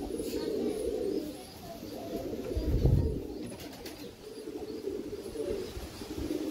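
Domestic tumbler pigeons cooing in low throaty coos, one of them puffed up and bowing in courtship display. A dull low thump about halfway through is the loudest sound.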